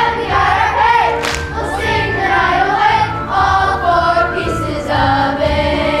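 Children's choir singing a show tune over an instrumental accompaniment with a steady bass beat.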